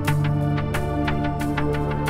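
Background music: held chords over a low sustained note that changes pitch at the start, with light struck notes repeating about four times a second.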